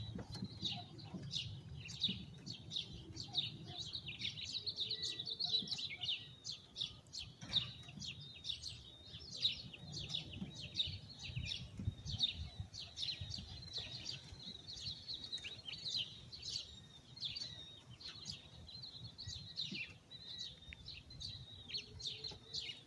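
Small birds chirping continuously, several short high chirps a second, over a faint low background rumble.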